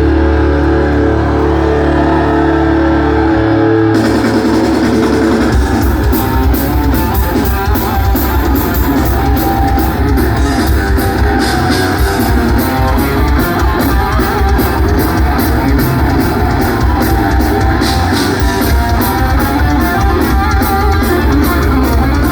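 Live heavy metal played by a band with electric guitars, bass and drums. Held guitar and bass notes open the stretch, then about four seconds in the cymbals and drums come in and the band plays on densely.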